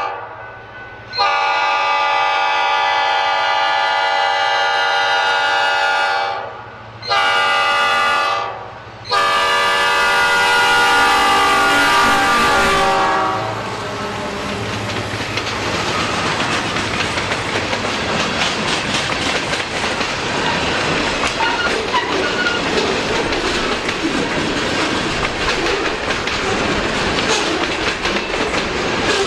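EMD SD40-2 diesel locomotive's air horn sounding the grade-crossing signal: the end of one blast, then a long, a short and a long blast, its pitch dropping as the locomotive passes. Then the freight cars roll by with a steady clickety-clack of wheels over the rail joints.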